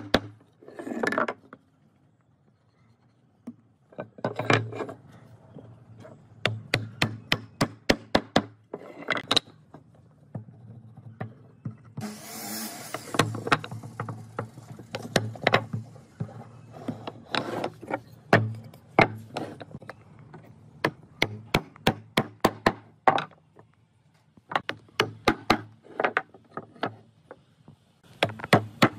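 Wooden mallet tapping mortise-and-tenon joints home on wooden table-leg parts, with wooden pieces knocking against each other and the bench. The sharp knocks come in quick runs with short pauses between them, and there is a brief rubbing noise about twelve seconds in.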